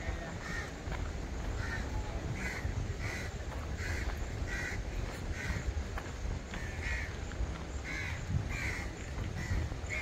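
A bird calling over and over, about a dozen short calls spaced half a second to a second apart, over a steady low rumble.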